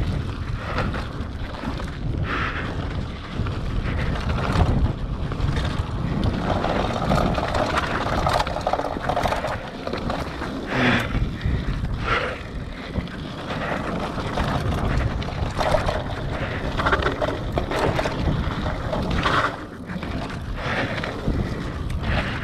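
Scott Scale 970 hardtail mountain bike rolling down a dirt trail: wind rushing over the microphone and tyre rumble, broken by frequent irregular knocks and rattles as the bike goes over bumps.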